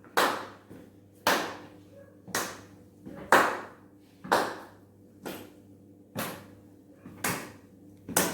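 Slow hand claps, evenly spaced about once a second, each a sharp single clap with a short fading tail. The slow clapping is the signal to move slowly.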